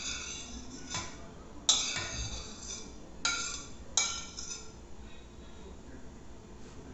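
A metal spoon clinking against a ceramic plate four times, each strike ringing briefly, as cheese cubes are scraped off the plate into a frying pan.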